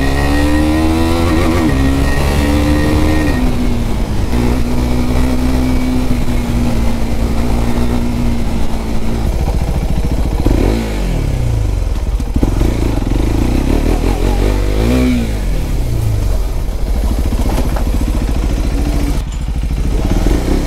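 KTM RC 390's single-cylinder engine, through a freshly fitted aftermarket bend pipe that the owner says has made it louder, heard from the rider's seat. It revs up through two gears, holds a steady cruise, then the revs fall and rise several times as the bike slows and picks up again.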